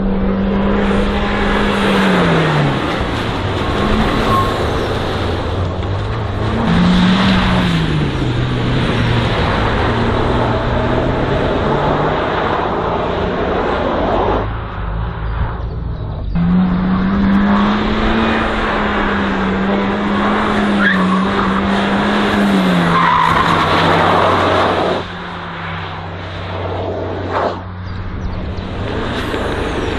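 A race car driven hard through a slalom course: the engine is held at high revs, drops in pitch and climbs again several times as it lifts, shifts and accelerates, with a brief lull about halfway through. Tyres scrub and squeal through the turns.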